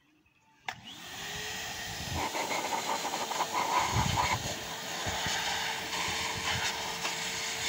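Wet-and-dry vacuum cleaner switched on with a click, its motor whining up to a steady pitch within about a second and then running with a steady rush of air, set to blow out of its hose rather than suck.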